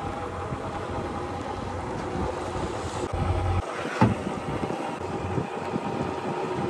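Small hire motorboat under way on a lake: steady motor and water noise with wind buffeting the microphone, a stronger gust about three seconds in and a single sharp knock about four seconds in.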